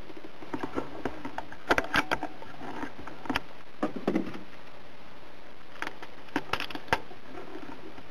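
Scattered light clicks and knocks over a steady low hiss, some in quick clusters of two or three.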